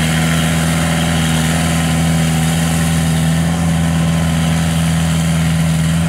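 Engine of a tracked rice carrier loaded with grain sacks, running steadily at an even pitch as it crawls across the harvested paddy.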